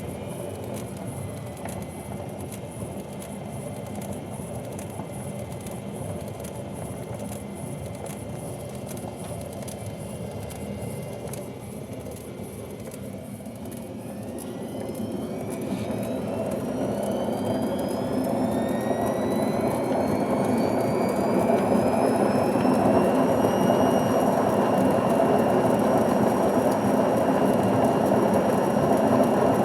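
Washing machine spinning on worn-out drum bearings. It runs steadily at first; from about halfway in, a whine rises as the drum speeds up and the rumbling grows much louder, holding at top spin speed near the end. The loud rumble at speed is the sign of the worn bearings.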